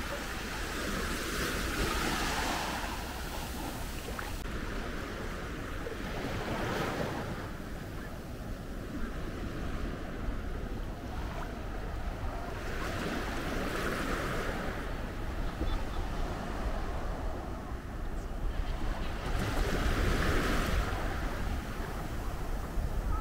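Small waves breaking and washing on a sandy beach, swelling about every six seconds. The waves are gentle because a breakwater shelters the beach. Wind rumbles on the microphone throughout.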